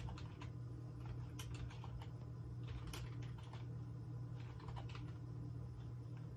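Clicks of a computer keyboard, coming irregularly in small clusters, over a steady low hum.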